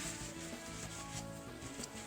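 Soft background music over faint rubbing and scrubbing as a brass-plated steel belt buckle is cleaned.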